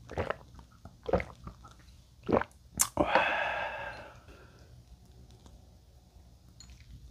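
A man gulping down a shot of soju in three swallows about a second apart, then a sharp lip smack and a voiced sigh of about a second after the shot.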